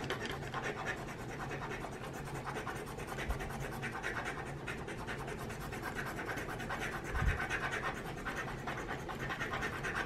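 Titanium key-shaped multi-tool scraping the coating off a paper scratch-off lottery ticket: a steady run of rapid, fine scratching strokes, with a soft knock about seven seconds in.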